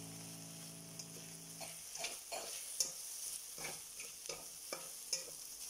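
Spatula stir-frying rice and chicken in a stainless steel pan: quick scraping, tossing strokes about two a second, starting a little over a second in, over a faint sizzle.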